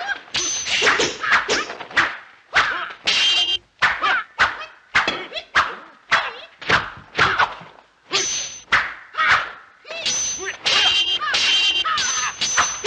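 Kung fu film fight sound effects: a fast run of staff and spear swishes and hard hits, about two a second, mixed with the fighters' shouts and grunts.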